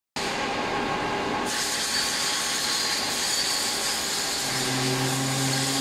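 Steady mechanical noise of factory machinery running, which turns brighter about a second and a half in. A low steady hum joins about two-thirds of the way through.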